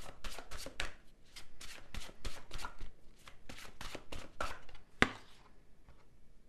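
A tarot deck being shuffled by hand: a quick, irregular run of light card slaps and taps, about four to five a second. One sharper slap comes near the end, and then the shuffling stops.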